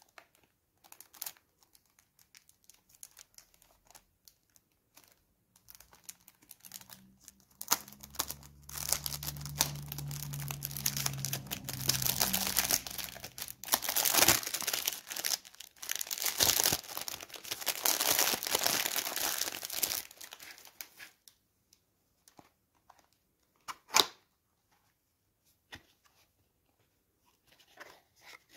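Cellophane shrink-wrap being torn and peeled off a perfume box, crinkling in a long dense stretch in the middle, followed by a single sharp click and faint cardboard handling as the box is opened.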